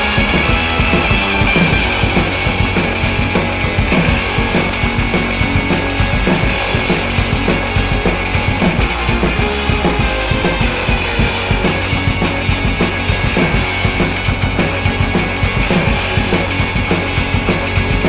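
Loud rock background music with a driving drum-kit beat and guitar.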